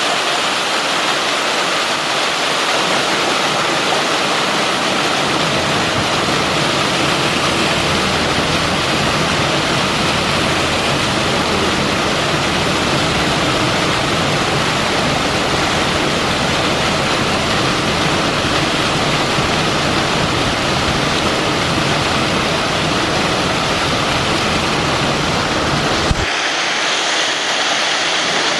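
Water pouring and splashing steadily into a pool, like a small waterfall. A single short click comes near the end, after which the rushing sounds thinner, with less of its low rumble.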